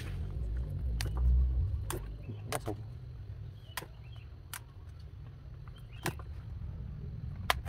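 Handling noise: a series of sharp clicks and snaps about a second apart as plants are handled, over a low rumble that is loudest in the first couple of seconds.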